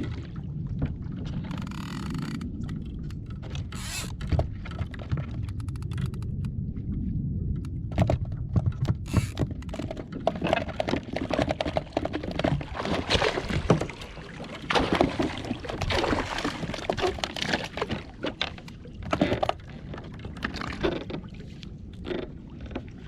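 Water splashing and slapping around a kayak, with knocks and scrapes on the hull, over a steady low rumble; the splashing and knocking grow busier about eight seconds in.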